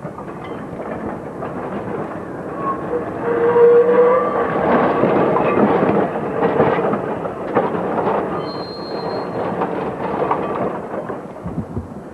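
1922 Peter Witt streetcar running past on its rails, its wheels clicking over the track, getting louder about four seconds in and staying loud as it goes by, with a brief high squeal about two-thirds of the way through.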